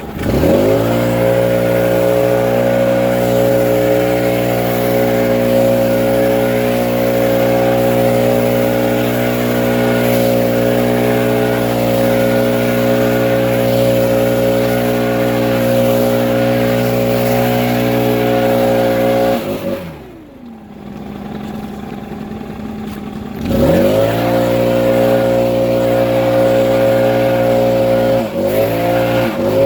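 Leaf blower revving up and running steadily at high throttle. About two-thirds of the way through it drops back to idle for a few seconds, then is throttled back up, with a brief dip near the end.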